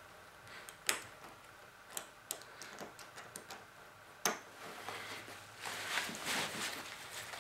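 Backpack and chest-harness straps being handled: a few scattered light clicks, the sharpest about four seconds in, then soft rustling of the straps and webbing from about five seconds in.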